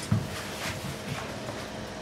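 A single dull, low thump at the start, followed by a few faint soft knocks.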